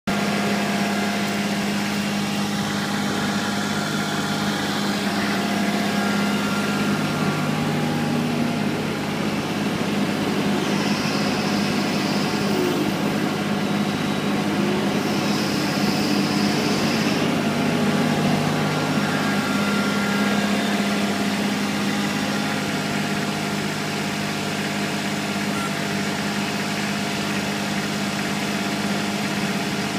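Kubota L3240 compact tractor's diesel engine running steadily at a constant speed. Two brief high whines come about halfway through.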